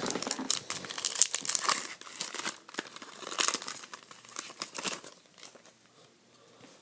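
A trading-card pack wrapper being torn open and crinkled by hand, a dense crackling that lasts about five seconds and then dies away.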